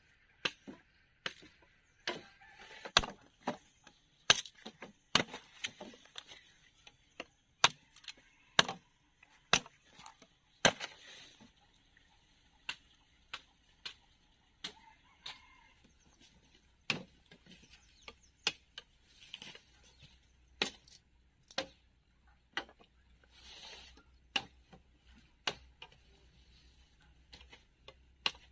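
Chopping: sharp, irregular knocks of a blade striking, about one to two a second.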